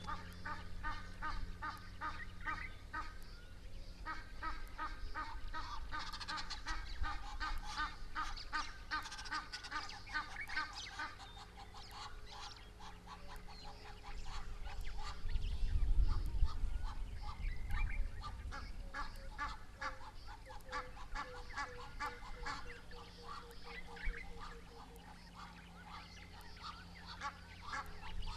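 Birds calling in long runs of rapid, repeated honking notes, in two spells with a pause about halfway through. During the pause a low rumble rises and fades.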